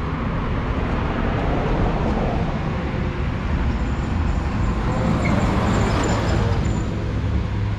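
Steady road traffic noise with a vehicle engine running, a low rumble that grows stronger in the second half.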